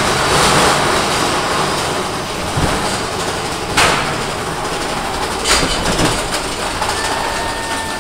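Mine-train roller coaster cars running along the track in the dark: a steady rumble and rattle of wheels on rail, with two sharp clanks about a second and a half apart and a faint thin squeal near the end.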